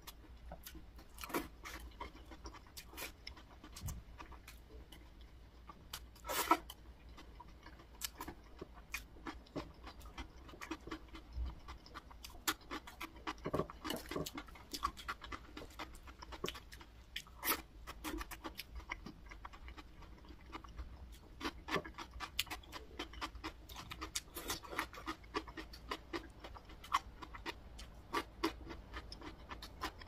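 A person eating: chewing with many small irregular clicks and taps, several a second and none loud.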